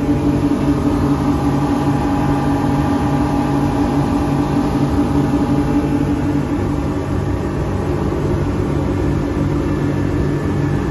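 Boat engines running steadily at cruising speed, heard from inside the enclosed helm.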